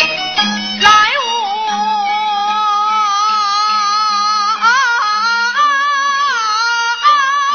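Peking opera aria sung over instrumental accompaniment: long held notes with vibrato, broken by short ornamental turns. A sharp click comes just under a second in.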